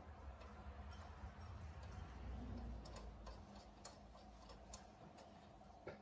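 Faint, irregular light metallic clicks as an intake-horn stud is turned in by hand toward the turbocharger inlet, over near silence.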